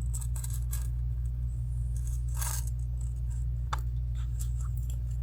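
A few light metal clicks and a brief jingle from a dog tag curb chain and its J-hook clasp being handled, the loudest about two and a half seconds in, over a steady low electrical hum.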